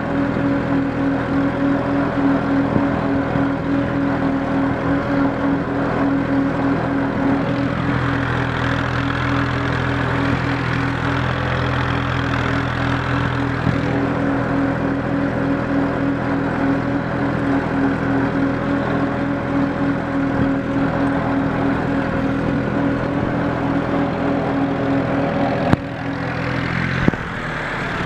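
Massey Ferguson 240 tractor's three-cylinder Perkins diesel running steadily while pulling a disc plough through the soil. Near the end there is a sharp click, then the engine note shifts and dips briefly.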